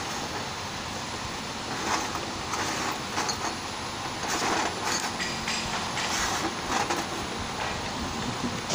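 Bottle labelling machine running with a steady mechanical noise, and irregular clinks and knocks of glass bottles being handled on its stainless steel outfeed tray, more of them from about two seconds in.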